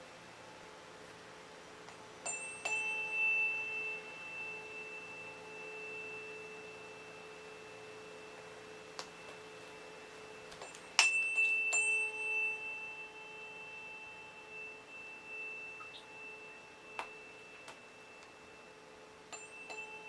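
A 432 Hz tuning fork rings with a steady pure tone. It is struck again twice about two seconds in, twice about eleven seconds in, and once near the end. Each strike gives a sharp click and a brighter, higher ring that fades over a few seconds.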